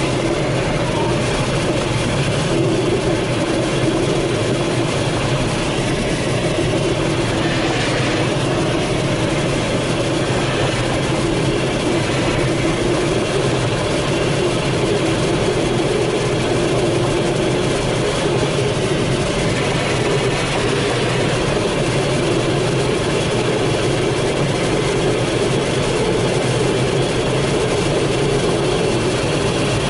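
Steady rush of airflow around the canopy of a Grob Astir glider in flight, heard inside the cockpit as an even, unbroken rumble and hiss.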